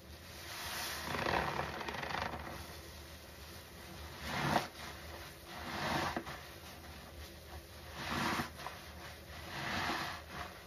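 A large red foam sponge soaked in thick soapy suds being squeezed by gloved hands, giving wet squelching and crackling of foam. There are five squeezes about two seconds apart, the loudest about four and a half seconds in.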